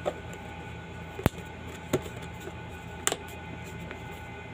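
A few sharp clicks and taps of kitchenware over a steady low hum.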